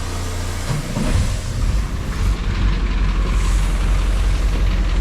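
Boat's port-side inboard engine running while being flushed with pink antifreeze for winterizing; about a second in its sound gets louder and deeper and stays so.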